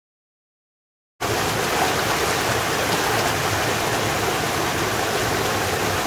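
Mountain stream rushing over rock ledges in a small cascade: a steady, even water noise that cuts in suddenly about a second in, after dead silence.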